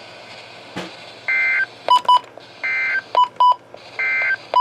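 Emergency Alert System end-of-message data bursts on NOAA Weather Radio: three short, buzzy two-tone warbles about a second and a third apart, marking the end of the flash flood warning. Each burst is followed by two short, sharp beeps, and a single click comes just before the first burst.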